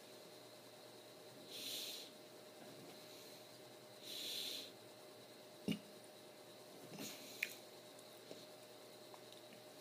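Soft breathing close to the microphone, one breath every two to three seconds. A single sharp thump comes a little past halfway, and two light clicks follow soon after.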